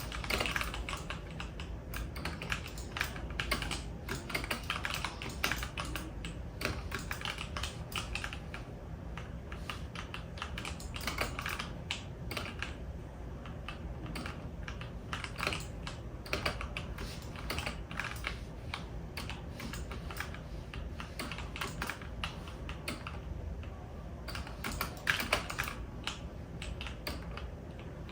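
Someone typing steadily on a computer keyboard: a continuous patter of key clicks, with quicker flurries of typing now and then.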